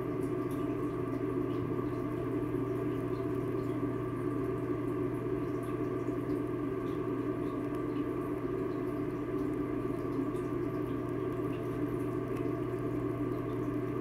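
A steady low hum with a few faint, scattered ticks over it.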